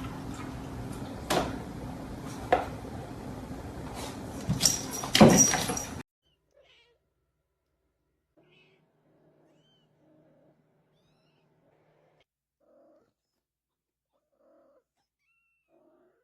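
A cat meowing over background hiss, loudest about five seconds in. The sound cuts off suddenly about six seconds in, leaving near silence.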